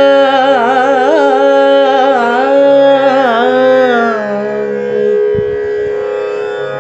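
Indian classical vocal music: a singer draws out one long, wavering, wordless phrase over a steady tanpura drone. The voice fades out a little past the middle and leaves the drone sounding on its own.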